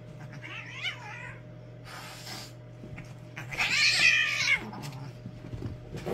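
Domestic cats yowling while wrestling: a short wavering yowl about half a second in, a brief noisy burst around two seconds, then a longer, louder yowl that rises and falls around the middle of the clip.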